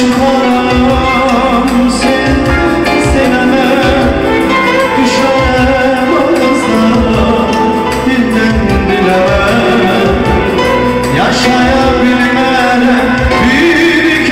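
Band music playing an instrumental passage of a Turkic-language song, a melody line over a steady drum beat.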